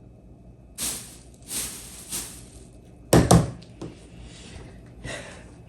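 Short rustling handling noises, then a pair of loud thuds about three seconds in, like something bumped or set down.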